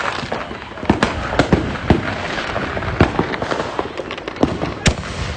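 Many fireworks and firecrackers going off at once: a continuous crackling with sharp, irregular bangs and pops throughout.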